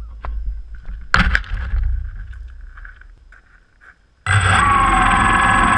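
Quadcopter drone handled and set down on shingle, with knocks and a clatter of pebbles about a second in, then its motors start up about four seconds in with an abrupt, loud, steady whine of several pitched tones.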